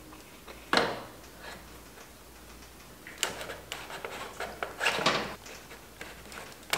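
Chrome fork leg of a 1972 Honda CB750 being pushed up into the triple clamps: a loud metal knock about a second in, then a run of sharp knocks and scrapes in the second half as the tube is worked into place.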